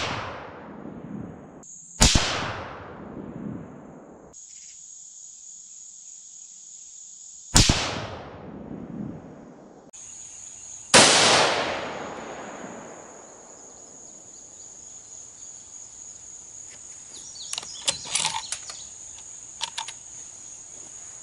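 Remington 783 bolt-action rifle in .243 firing: one shot right at the start, then three more about two, seven and a half and eleven seconds in, each with a long echoing tail, the last the loudest. Insects buzz steadily at a high pitch between the shots, and a few light clicks and knocks come near the end.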